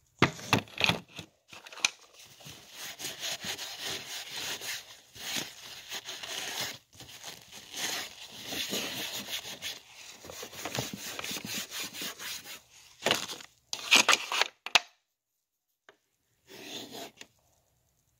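Handling noise on a phone's microphone: irregular rubbing and scraping with sharp knocks, the loudest a few seconds before the end. It stops suddenly, then comes back once briefly.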